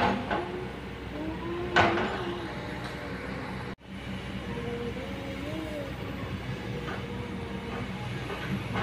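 Kobelco hydraulic excavator running steadily, its engine a low drone, with wavering squeals from the machine and one knock about two seconds in. The sound drops out for an instant near the middle.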